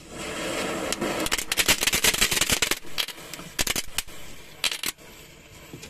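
Matchstick chain burning, the match heads catching one after another: a hiss, then a fast run of sharp crackling pops for about two seconds, and a few scattered pops after it.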